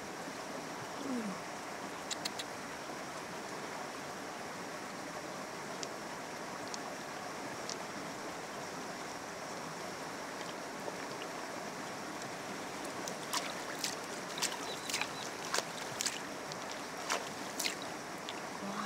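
Steady rushing noise like running water, with a couple of sharp clicks early on and a run of sharp clicks and taps in the second half.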